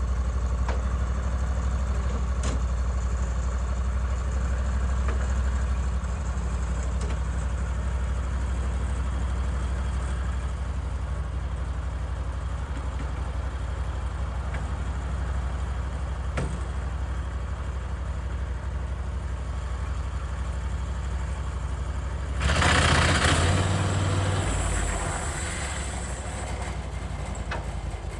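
Woodland Mills HM136MAX sawmill engine running steadily at a low, even speed. About 22 seconds in, a louder rushing noise comes in for about two seconds and the engine note briefly rises, then it settles back a little quieter.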